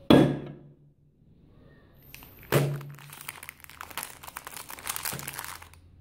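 A knock as an aluminium drink can is set down on a wooden table, then a sharp crack about two and a half seconds in, followed by about three seconds of a plastic cookie wrapper crinkling and crackling as it is handled.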